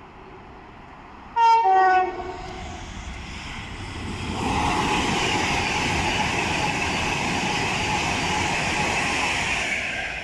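Class 390 Pendolino electric train giving a brief two-tone horn, a high note then a lower one, about a second and a half in. It then runs through at speed with a steady, loud rushing noise from about four seconds in.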